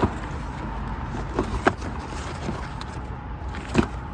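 Gear being handled: scattered light knocks and clicks, with one louder knock near the end, over a steady low rumble.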